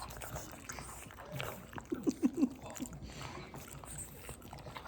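Pets chewing and tugging on strings: scattered small clicks and rustles, with a quick run of four short pitched sounds about two seconds in.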